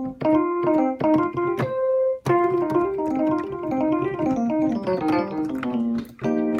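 Rhodes-style electric piano sound from the Korg Module app on an iPad, played from a Novation Launchkey 49 keyboard controller: a melodic run of notes and chords, with a held note and a brief pause about two seconds in.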